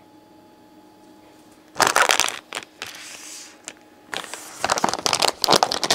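Plastic mystery-bag packaging crinkling as it is picked up and handled: quiet for almost two seconds, then short bursts of rustle that grow busier near the end.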